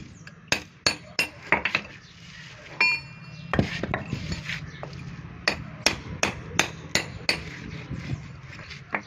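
Irregular sharp knocks and clinks of hammers and metal bars striking and prising up concrete paver blocks, with one ringing metallic strike about three seconds in. A low steady hum runs underneath through the middle.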